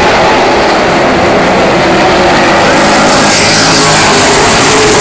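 Loud, steady engine noise from a field of Super Truck race trucks running laps on a short oval. A truck passing close brightens the sound from about three seconds in.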